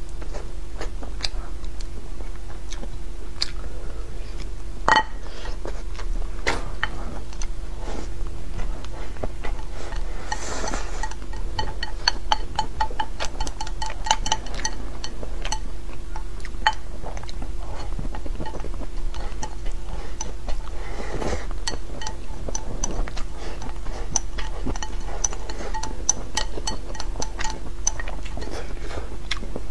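Wooden chopsticks clicking and scraping against a ceramic bowl as rice is scooped into the mouth, in quick runs of clicks, with chewing. A steady low hum runs underneath.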